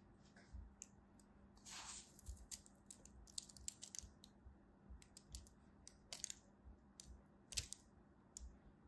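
Kinetic sand being pressed and crumbled by fingers in a small plastic mold: faint, irregular crackles and sharp little clicks, with a short hissing crumble about two seconds in and one louder click near the end.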